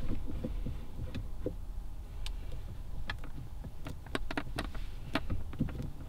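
Irregular light clicks and soft knocks of a Mugen carbon fiber shift knob being spun by hand onto the threaded shift lever.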